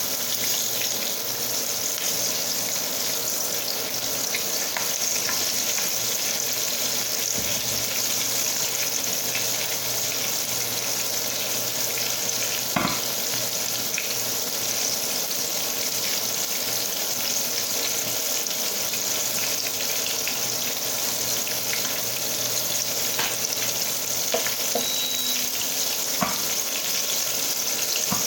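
Flour-coated chicken pieces shallow-frying in hot oil in a pan: a steady sizzle, with a couple of sharp clicks partway through and near the end.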